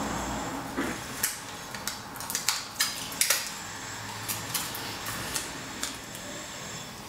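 Handling noise of a plastic syringe barrel and thin copper winding wire: a run of irregular light clicks and taps, ending about six seconds in.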